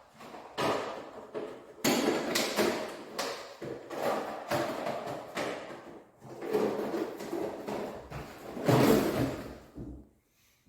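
Irregular knocking and clattering of things being handled, in uneven bursts, loudest about nine seconds in.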